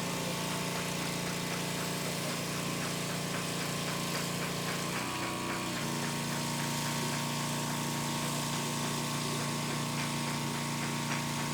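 An engine running steadily, with a brief change in its pitch about five seconds in before it settles again.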